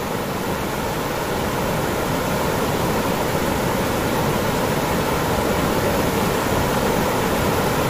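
Fast river water pouring over a low stone weir: a steady rushing noise.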